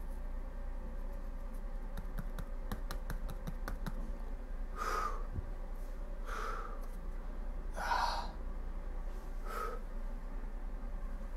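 A man's short, forceful breaths, four of them about a second and a half apart, as he tenses his muscles to flex. A quick run of faint clicks comes before them, over a steady low hum.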